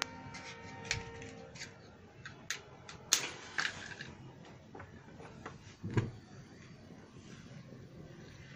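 Scattered clicks and sharper metallic knocks as a gas stove is lit and a heavy, thick-walled kadhai is set and shifted on its burner. The loudest click comes about three seconds in, and a deeper knock about six seconds in.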